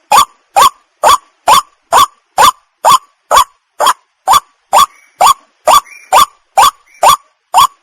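White-breasted waterhen calling: a short, upward-sweeping note repeated evenly about twice a second.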